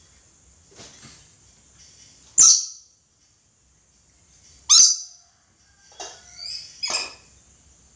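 Red lory screeching: harsh, sharp calls with two loud ones about two and a half and five seconds in, then a quick run of shorter calls near the end.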